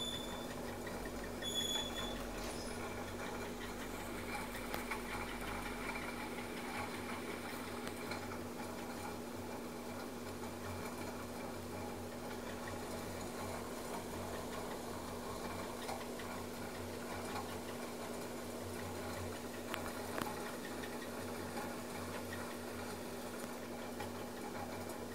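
Steady background hiss with a constant low hum and a few faint ticks, and a short high chirp about a second and a half in; no voice or music.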